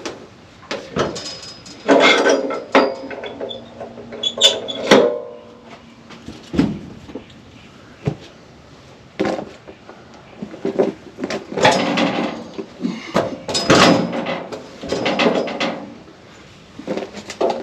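Irregular knocks, clunks and scraping in short clusters, with quiet gaps between them.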